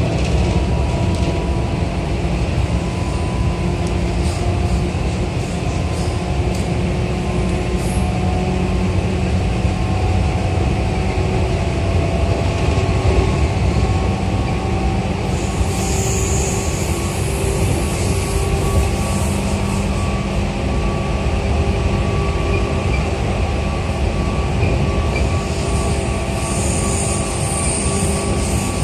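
Running noise of a JR 211-series electric multiple unit heard inside its motor car, MoHa 210-1002: a steady rumble of wheels on rail and running gear with a few faint steady tones. A high hiss comes in twice, around the middle and near the end.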